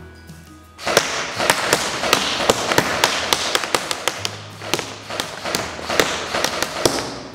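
6 mm BBs from an ARES AM-014 airsoft electric gun striking a paper target and its cardboard backing: a rapid, irregular string of sharp taps starting about a second in and stopping near the end.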